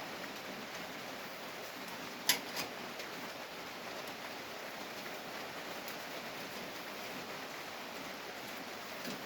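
A spanner clinking twice in quick succession on a diesel injector pipe fitting, a little over two seconds in, over a steady hiss.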